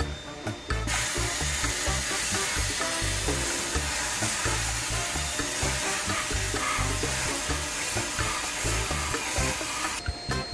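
Sandblaster spraying abrasive onto a moped's spoked front wheel: a steady, dense hiss that starts about a second in and cuts off near the end, with background music underneath.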